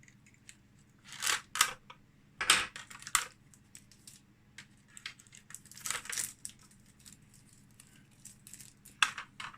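Transit tape being peeled off a die-cast model car's doors: a series of short rips and rustles with quieter gaps between them.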